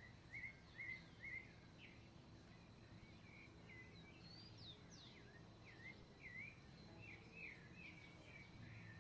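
Songbirds singing: a run of short chirped and gliding whistled notes, three louder ones in the first second and a half, then more varied notes, some sweeping up high. A faint low hum sits underneath.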